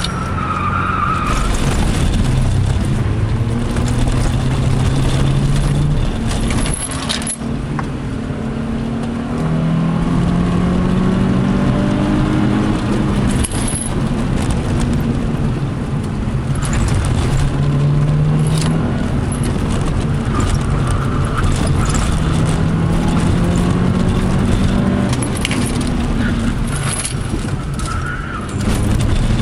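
Subaru Impreza's flat-four engine heard from inside the cabin, driven hard: the revs climb repeatedly for a few seconds at a time and then drop as the driver lifts or changes gear, over steady tyre and road noise.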